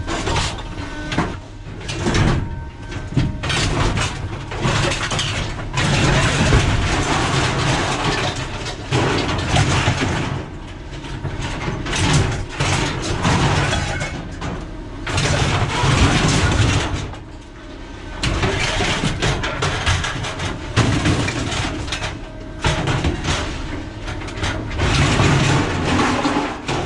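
Scrap metal being unloaded at a scrap yard: pieces dragged, scraping and clattering against metal, in loud stretches of a few seconds with short lulls between.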